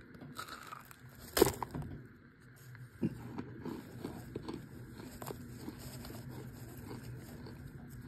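Chunks of compacted cornstarch crunching and crumbling as a fingertip presses into them. There is one loud crack about a second and a half in, a smaller one a couple of seconds later, then a run of small crackles.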